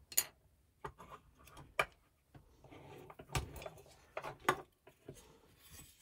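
Handling noise as the camera is moved in closer: irregular sharp clicks and light knocks with soft rustling between them.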